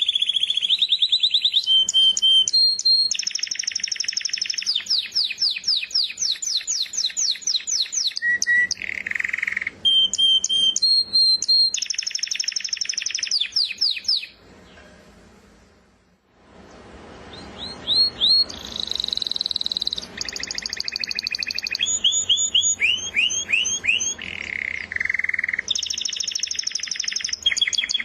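Canary singing: long rolling runs of rapidly repeated high notes, each run switching to a new pitch and rhythm every second or two. The song stops for about two seconds just after the middle, then resumes.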